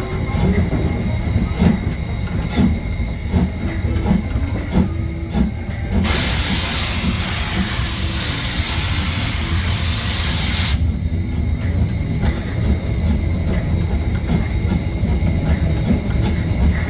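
Steam locomotive 99 7240-7, a 2-10-2 narrow-gauge tank engine, working hard up a 1-in-25 grade with seven loaded coaches: heavy, slow, regular exhaust beats. Near the middle, a loud hiss of escaping steam lasts about five seconds, then cuts off sharply.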